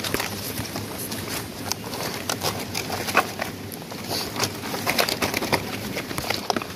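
Fresh palm fronds rustling and crackling as hands fold and press them over the chicken, with many short, sharp crackles.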